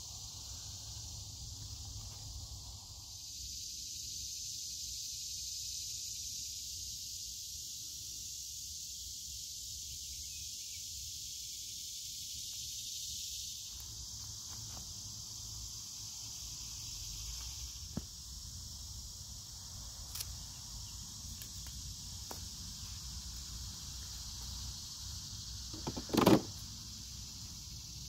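A steady, high insect chorus of crickets chirring, with a few faint clicks and one brief louder knock near the end.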